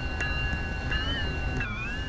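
Passing train's wheels squealing: a high, steady multi-tone squeal that wavers in pitch past the middle, over a low rumble, with a wheel click from a rail joint shortly after the start.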